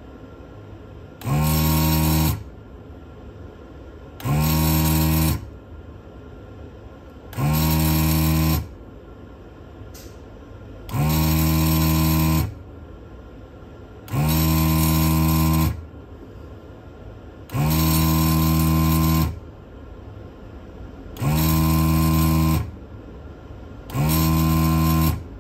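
Motorised vacuum desoldering tool's pump buzzing in eight bursts of one to two seconds, roughly every three seconds, as solder is sucked off the pins of an old potentiometer being removed.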